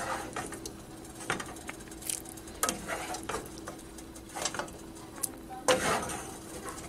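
Wooden spoon stirring cooked lentils in a tomato broth in a frying pan: wet sloshing with scattered short scrapes and knocks of the spoon against the pan, busiest about six seconds in. A faint steady hum runs underneath.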